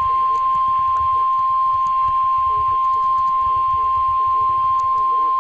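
NOAA Weather Radio warning alarm tone: one steady, high-pitched tone of about 1050 Hz over faint radio static, the signal that a warning broadcast follows.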